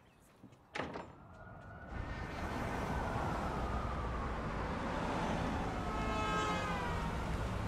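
A door thuds shut about a second in, then city street traffic builds up: cars and a bus running past, with a falling whine from a passing vehicle near the end.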